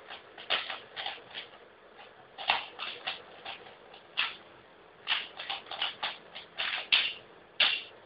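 Plastic Rubik's Cube layers clicking and clacking as it is turned rapidly by hand, in quick irregular bursts of several turns with short pauses between them.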